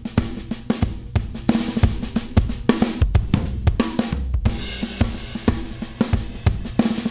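Recorded drum kit playing back, with kick, snare, hi-hat and cymbals in a steady beat, run through a 5020 stereo FET limiter on the drum bus while its stereo-link modes are compared.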